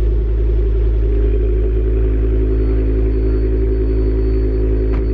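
Ford Focus ST225's turbocharged 2.5-litre five-cylinder engine idling steadily through a 3-inch downpipe with the catalytic converter removed (decat). The exhaust note is low and even, with no revs.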